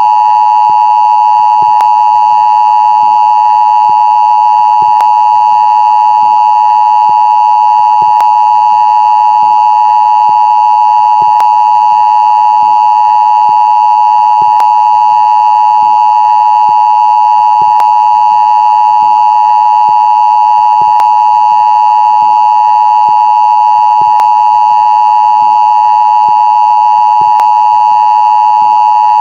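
Mock Emergency Alert System tone: a loud, unbroken electronic tone near 1 kHz, with faint ticks about every second and a half.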